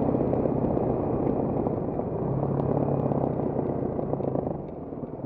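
Trail motorcycle engine running steadily on a rough dirt and stone lane, then backing off about four and a half seconds in as the bike slows.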